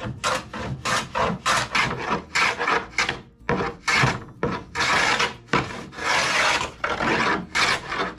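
Hand plane shaving the end edge of a wooden sheathing panel, in short quick strokes of about four a second at first, then longer strokes from about five seconds in.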